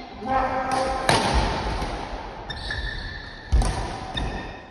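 Badminton rally: rackets smacking the shuttlecock with sharp cracks, the loudest about a second in and again about three and a half seconds in, with short squeaks of shoes on the court floor in between.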